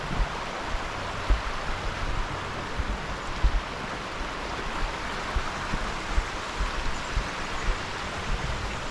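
Creek water rushing steadily, with irregular low thumps.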